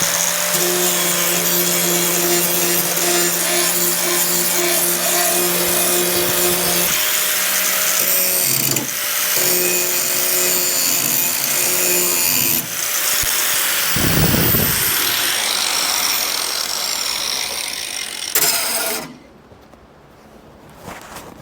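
Angle grinder grinding down rusty car body metal, its motor whining steadily with a harsh scraping rasp, dipping briefly a few times as it is pressed and lifted. It stops about 19 seconds in and winds down.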